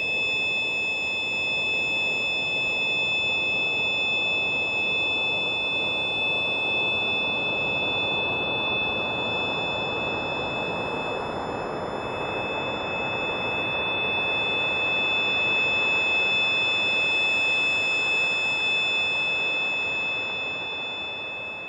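Alien sci-fi soundscape sound effect: several steady, high electronic tones held over a rushing, hiss-like drone, which begins to fade out near the end.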